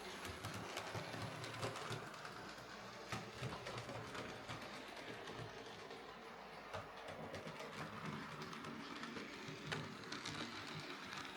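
Hornby Class Q6 OO gauge model steam locomotive running along the track on its newly fitted replacement motor, a steady running whirr with scattered light clicks from the wheels on the rails.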